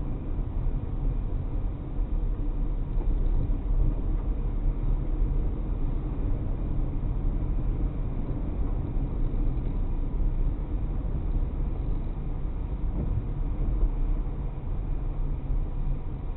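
Car driving along, heard from inside the vehicle: a steady low rumble of engine and tyre noise.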